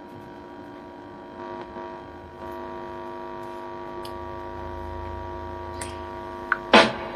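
Steady electrical mains hum from the home theater amplifier and speaker between songs, many tones at once, stepping up slightly about two seconds in. There are a few faint ticks, and a short louder burst near the end.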